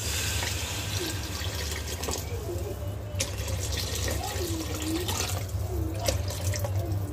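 Water poured in a steady stream from a plastic jug into a pot of sautéed rice, lentils and vegetables, splashing and gurgling as the pot fills, heaviest in the first second. This is the water added after the sauté stage of cooking khichuri.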